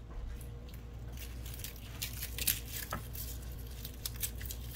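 Papery crackling and a few light clicks as unpeeled garlic cloves are broken off the bulb and dropped into the pot.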